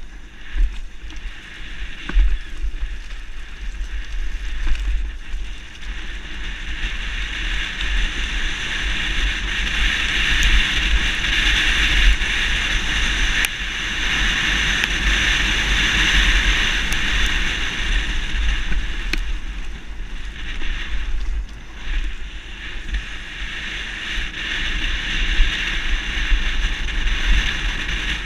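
Wind rushing over a helmet-mounted action camera's microphone while a mountain bike descends a dirt trail, a heavy low buffeting with a steady hiss of air and tyres over it, loudest about midway through, with a few sharp knocks from the bike.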